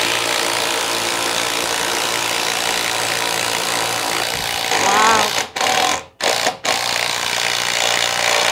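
Two 12-volt impact drivers, a DeWalt and a Milwaukee M12 Fuel Surge hydraulic impact driver, hammering screws in side by side in a race. The steady impacting breaks off in short stops from about five and a half to seven seconds in and once more near the end.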